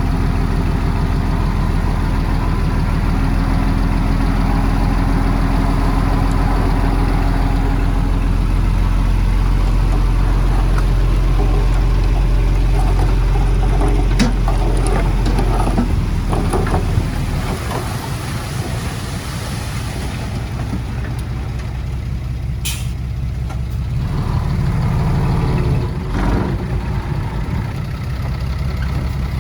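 Heavy diesel earthmoving machinery running under load, a low steady engine note that eases off about two-thirds of the way through and swells again briefly near the end. A short, sharp hiss of air cuts in near the end.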